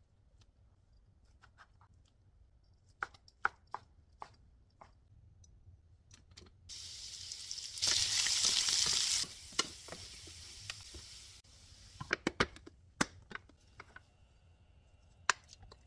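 A knife taps through a thin egg omelette onto a wooden cutting board several times. Then julienned carrots sizzle in hot oil in a frying pan for about five seconds as they are stirred with wooden spoons, louder for a second or so near the middle. A few knocks follow near the end.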